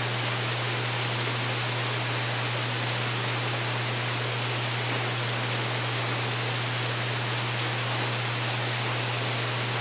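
Steady rain on a covered porch roof, an even hiss, with a steady low hum underneath.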